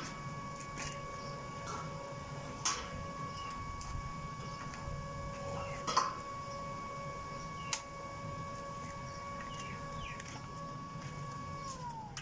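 Steady pitched hum of a stick-welding machine, with four sharp metallic taps about two seconds apart; near the end the hum drops in pitch and stops as the machine winds down.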